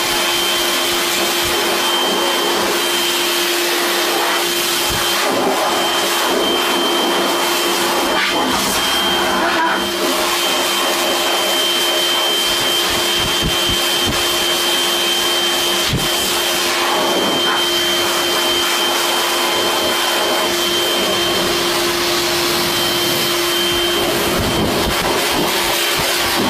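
Handheld hair dryer running steadily: a constant rush of air with a steady hum and a high whine through it.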